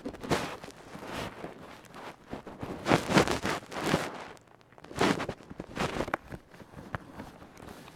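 Irregular rustling and handling noises, several short bursts of noise, the loudest a little after three seconds in and again about five seconds in.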